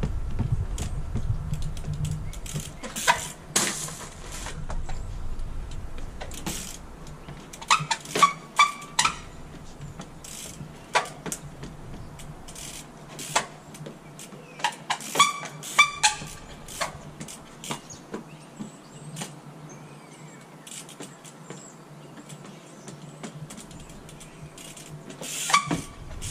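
Crewkerz trials bike hopping and landing on wooden pallets: a series of sharp knocks and clacks as the tyres strike the wood, some with a brief ringing tone, coming in clusters with quieter gaps between them.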